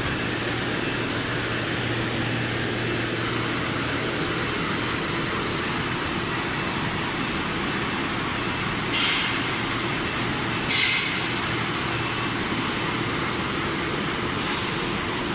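Steady drone of veneer-line machinery with a low electric hum, and two short hissing bursts about a second and a half apart past the middle.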